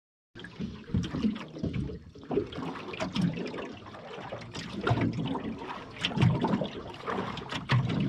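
Seawater splashing and lapping in irregular sloshes, starting abruptly a moment in.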